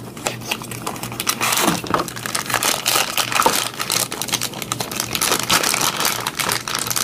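Clear plastic packaging bag crinkling and crackling continuously as hands work it open to get at a diecast toy car.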